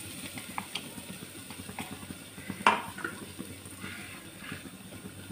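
Tempering in hot oil in an aluminium pot: mustard seeds and ground spices crackling with scattered faint pops, and one sharp knock about two and a half seconds in.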